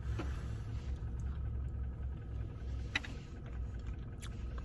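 Low steady rumble of a car idling, heard from inside the cabin, with a few light clicks and taps during eating.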